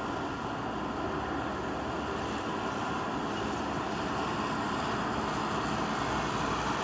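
Steady rushing wind, slowly growing a little louder.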